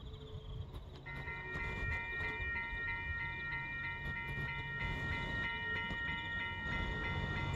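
Level crossing's electronic warning bell starts ringing about a second in, a fast, even, repeating ding. It sounds over a low rumble, and crickets chirp faintly at the start.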